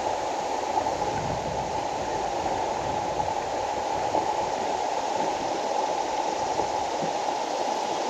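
Steady rush of river water running over rocks in a shallow shoal, an even noise with no distinct events.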